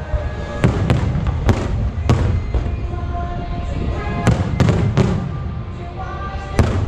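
Aerial fireworks shells bursting: a string of sharp bangs, several in the first two seconds, a short lull, then more bangs, with music playing behind them.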